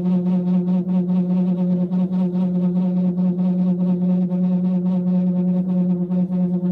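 Loud sustained electronic drone holding one low pitch, its overtones wavering, with a rapid flutter running through it.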